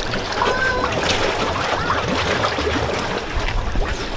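Koi splashing and churning at the water's surface as they go after food. Short chirps are scattered through the splashing.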